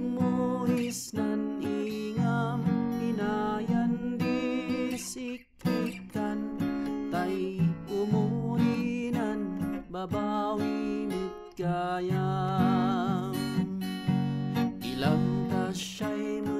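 A man singing with vibrato while strumming an acoustic guitar, picked up by a LENSGO KD96 cardioid condenser microphone as a sound test. There is a short break in the playing about five seconds in.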